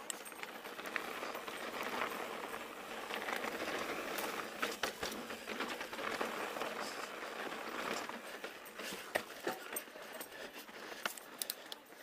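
Pivot Switchblade mountain bike rolling along a dirt trail: a steady crunching hiss of tyres on the ground with frequent sharp clicks and rattles from the bike.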